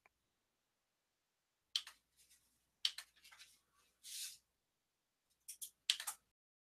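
Faint computer mouse clicks and desk handling noise: several short, sharp clicks in small clusters, with a brief rustle about four seconds in.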